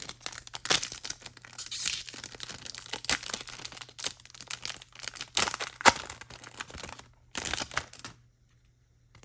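Foil wrapper of a Japanese Pokémon card booster pack being torn open and crinkled in a busy run of tearing and rustling that stops about a second before the end.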